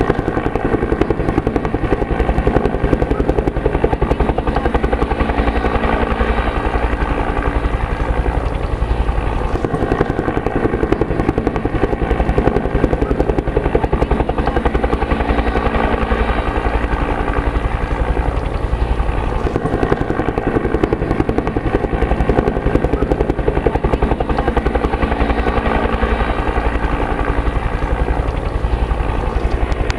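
A helicopter flying overhead, its rotor beating fast and steady with the engine whine underneath, loud throughout.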